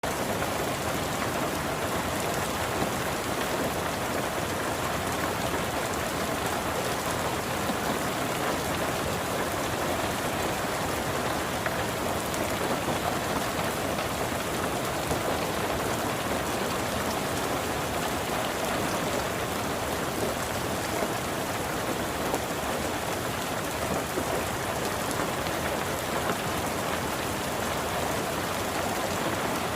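Heavy rain falling steadily, a dense even hiss of drops striking a surface, with occasional slightly louder drop hits.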